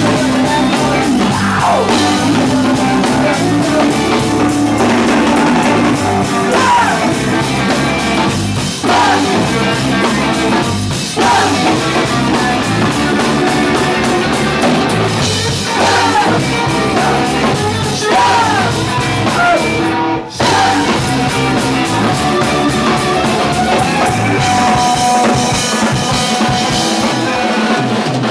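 Live rock band playing loud, with drum kit and electric guitar, and a brief stop in the music about twenty seconds in.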